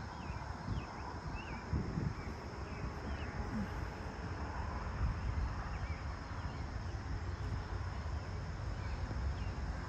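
Early-morning countryside ambience: a steady high-pitched insect chorus with scattered short bird chirps every second or two, over a low rumble of wind on the microphone.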